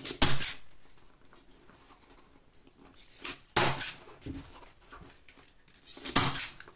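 Hand-held furniture staple gun firing three times, about three seconds apart (at the start, about three seconds in and near the end), driving staples through upholstery fabric into a wooden lid frame. Each shot is a sharp, loud snap.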